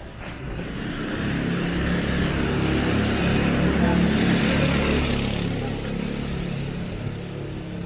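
Motor scooter passing close by: its small engine grows louder over the first few seconds, is loudest about four seconds in, then fades away.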